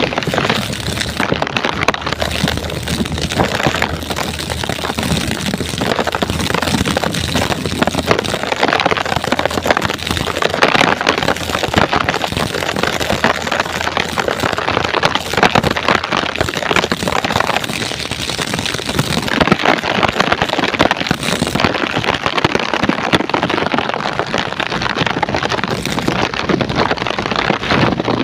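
Heavy rain pouring down in a storm: a loud, steady rush of dense, crackling drops.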